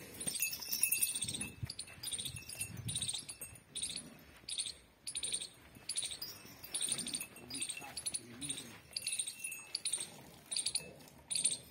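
Small metal bells on a cow's collar jingling in a steady rhythm, about one shake every three-quarters of a second, as the cow works her head over her newborn calf.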